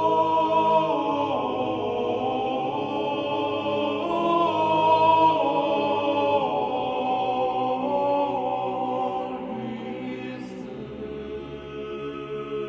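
Choir singing a slow, chant-like piece without instruments, holding long notes that move step by step in pitch; it grows somewhat quieter near the end.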